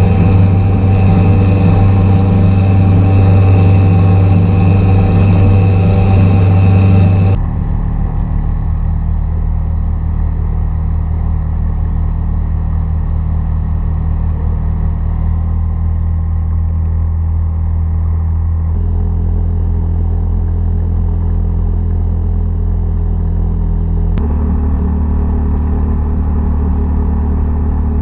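A 52cc two-stroke trimmer-engine outboard pushes a kayak along at speed with a loud, steady run and a strong high-pitched edge. About seven seconds in, the sound changes suddenly to a Mercury 3.5 hp four-stroke outboard running steadily, quieter and lower-pitched.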